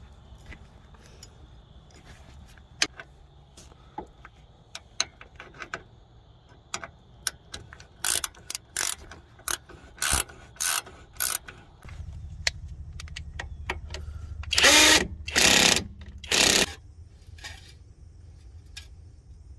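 Ratchet wrench working on wheel bearing hardware: scattered metallic clicks, then three short loud bursts of ratcheting about two-thirds of the way in, over a low hum that starts partway through.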